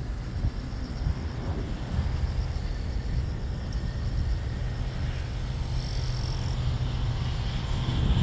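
Boeing 787-9's twin jet engines at takeoff thrust during the takeoff roll: a steady low rumble that builds slightly, with a hiss rising near the end as the airliner rotates.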